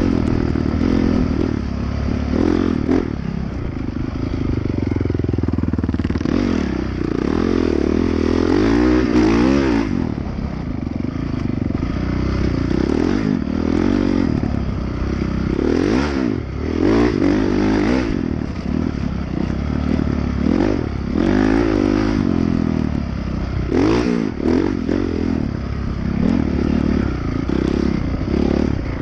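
Dirt bike engine being ridden hard, its pitch rising and falling over and over as the throttle opens and closes, with a few sharp knocks from the bike over bumps.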